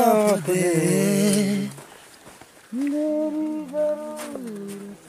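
A man humming a tune in two phrases: a wavering line at the start, then after a short pause a long held note that slides down near the end.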